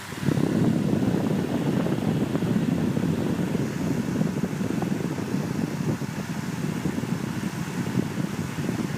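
High-velocity fan coming on: a steady low hum gives way about a third of a second in to a loud rushing rumble of moving air, which keeps running.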